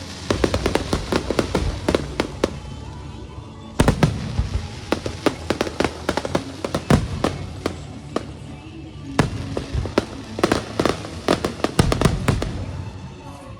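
Fireworks and firecrackers going off in rapid strings of sharp bangs and cracks, in three bursts of a few seconds each with short lulls between them.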